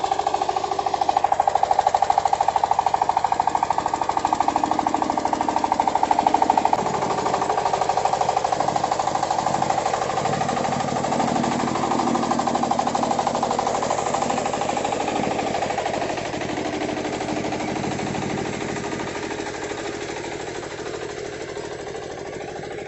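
Single-cylinder diesel engine of a công nông two-wheel-tractor cart chugging with rapid, even firing pulses as it hauls a heavy load of fresh cassava up a slope. It grows gradually fainter over the last several seconds.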